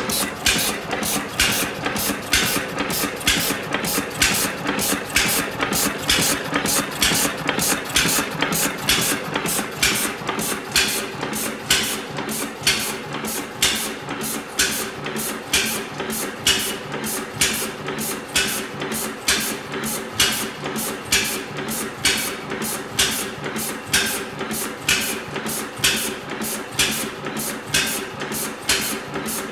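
Dudbridge 3 hp single-cylinder horizontal gas engine of about 1900 running steadily, with a regular train of sharp clicks and beats, about two a second.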